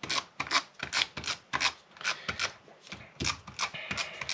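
Hand-held adhesive tape runner pressed and dragged over the back of cardstock, laying down square tape tabs: a short rasping stroke about three times a second.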